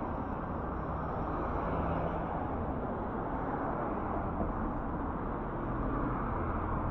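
Steady city street ambience: an even, low rumble of passing traffic.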